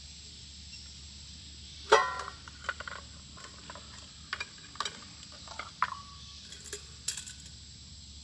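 Camp cooking clatter: one loud ringing metallic clink about two seconds in, then scattered lighter clinks and knocks of cookware being handled, over a steady high-pitched drone of insects.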